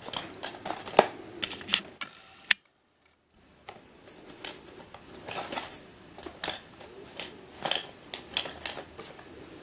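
A clear plastic window box with a plastic burr puzzle inside, handled and turned in the hands: scattered clicks and crackles of the plastic packaging. The sound cuts out completely for about a second, roughly two and a half seconds in.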